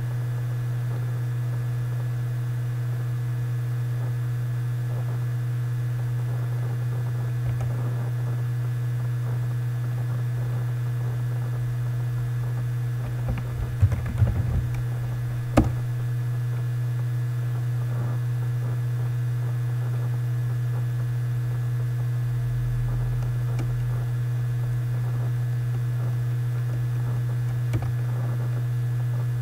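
Steady low electrical hum, with a short run of computer keyboard keystrokes about halfway through as a word is typed.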